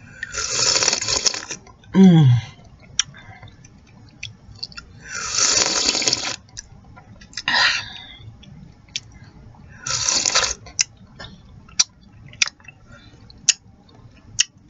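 Hot chicken noodle soup being slurped from a spoon or bowl: three long noisy slurps, with wet lip smacks and mouth clicks between them. About two seconds in comes a short low sound from the throat that falls in pitch.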